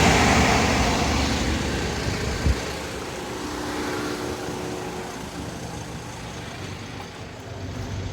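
The Dodge Sprinter's onboard generator running together with the van's idling engine: a steady low drone that eases down over the first few seconds, with a single thump about two and a half seconds in.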